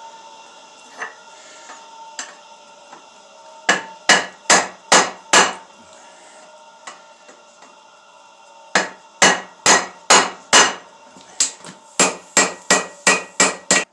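Hand hammer striking steel on an anvil in three bursts of ringing blows: five strikes, a pause, five more, then a quicker run of about nine. A steady hum sits underneath.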